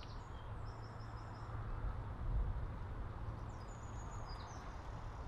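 Outdoor ambience of light wind rumbling on the microphone, with small birds chirping in short, high phrases about a second in and again near four seconds.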